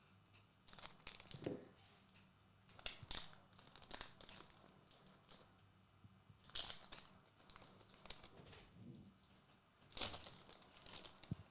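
Pokémon booster pack wrappers crinkling and being torn open, in short scattered bursts of rustling.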